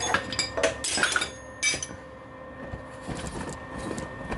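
Small metal pieces clinking and clattering with bright ringing clinks through the first two seconds, then quieter handling noise.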